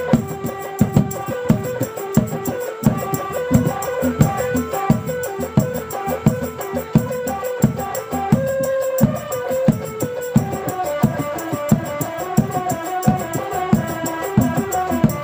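Rudat accompaniment music: a stepping melody of held notes over a steady drum beat of about three strokes a second.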